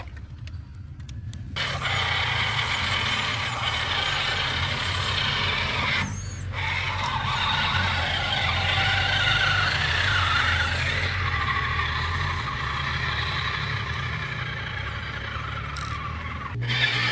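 Electric motor and gear drivetrain of an RC tubular-chassis crawler whining as it drives through muddy water. The pitch wavers up and down with the throttle, over a steady low hum.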